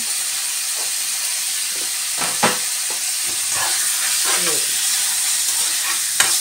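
Beef, onions and green onions sizzling steadily over high heat in a nonstick frying pan as they are stirred and tossed. A metal spoon knocks sharply against the pan about two and a half seconds in and again near the end.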